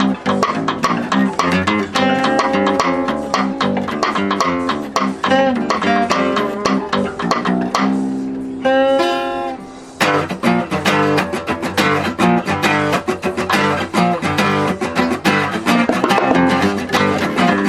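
Guitars playing a song's instrumental introduction live: quick picked notes and chords over a bass line. About nine seconds in, one held note rings out alone for about a second, then the full playing comes back in sharply.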